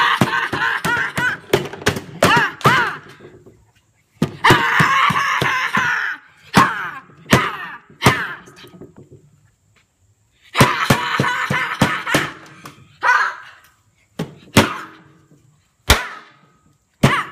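Repeated sharp slaps and thunks on a plastic folding tabletop as a lump of putty is smashed against it. About a dozen separate impacts come at uneven intervals. Three longer stretches of a child's high-pitched squealing come in between.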